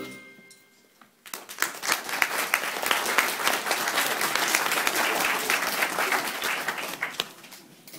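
Audience clapping and applauding. It starts about a second in after a brief hush and dies away near the end.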